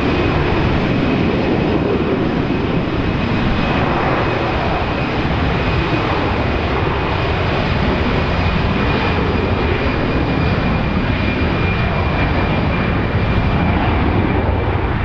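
Airbus A320-214's CFM56-5B jet engines running at taxi power as the airliner taxis: a steady rumble with a thin high whine held over it.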